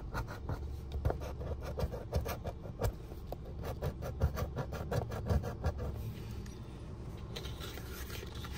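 A coin scratching the coating off a lottery scratch-off ticket in fast repeated strokes, stopping about six seconds in.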